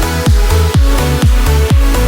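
Background electronic dance music with a steady four-on-the-floor kick drum, about two beats a second, under sustained synth chords.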